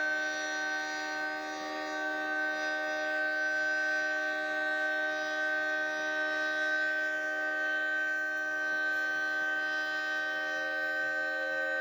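Federal Signal 3T22 electromechanical outdoor warning siren sounding a steady tone, several pitches held together with no rise or fall.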